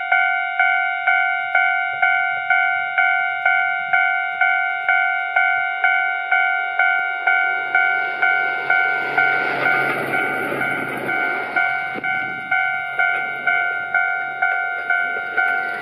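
Japanese level-crossing warning bell ringing steadily, about three strikes a second. From about eight seconds in, a diesel locomotive and its carriages pass close by, and their rumble and engine hum swell up under the bell.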